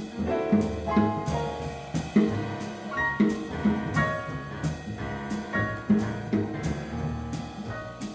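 Jazz piano trio playing: a piano line of quick notes over double bass, with drums keeping a steady cymbal beat.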